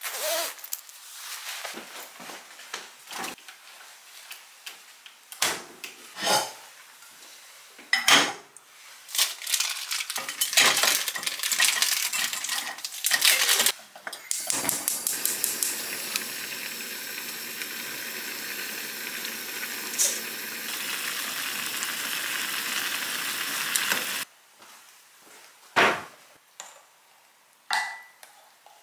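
Kitchen clatter: dishes and metal utensils knocking and clinking, then about ten seconds of a steady hiss that cuts off suddenly, followed by a few more knocks.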